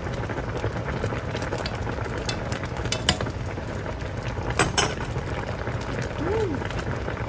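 Sauce boiling hard over high heat in an enamelled pot, with a steady bubbling crackle while a metal spoon stirs through it. A couple of sharp clinks of the metal spoon, one about three seconds in and a louder one just before five seconds.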